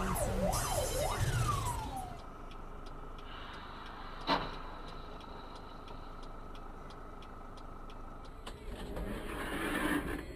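Fire engine siren wailing in sweeping rises and falls, dying away about two seconds in. Quieter road noise follows, with faint regular ticking and a single sharp knock about four seconds in.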